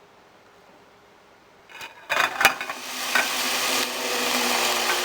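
Vegetables sizzling in a hot pan. A few knocks about two seconds in, then a loud, steady sizzle to the end.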